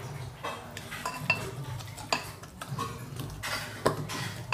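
A hand scoops and scrapes wet spiced onions out of a stainless steel bowl, with several sharp, irregular clinks of the metal bowl.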